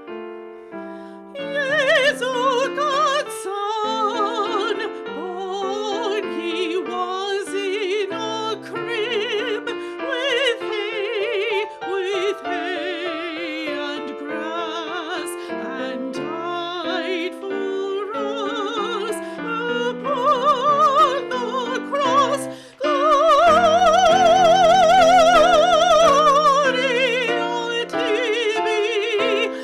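A classically trained female singer with strong vibrato sings an art song to piano accompaniment. About two-thirds of the way through she holds one long, loud high note.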